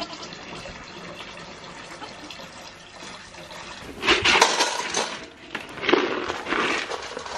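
Warm water pouring and splashing into a plastic bucket as a steady hiss, then two louder bursts of rustling in the second half.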